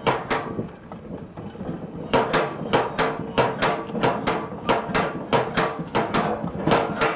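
Scrap collector's hand-pushed cart clanking and rattling as it rolls over a paved street: sharp metallic knocks about four a second, with a short lull that ends about two seconds in.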